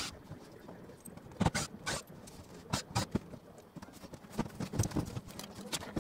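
Scattered knocks and clicks of hands and tools working on the RV ceiling during panel teardown, irregular and several a second at times.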